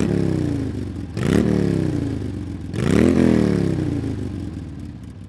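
PGO Tigra 150 scooter engine revved in blips: each rev climbs quickly, then winds down slowly. There are fresh revs about a second in and again near three seconds, and the sound dies away near the end.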